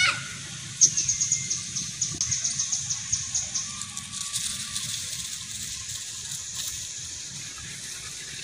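Background wildlife chirping: several runs of rapid, evenly spaced high-pitched ticks, each run about half a second to a second long, over a low steady outdoor rumble, with a short rising call right at the start.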